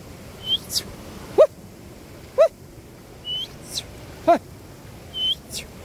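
Animal calls: brief calls that glide upward in pitch, about one every one to two seconds. Shorter, higher chirps come between them, over a steady hiss.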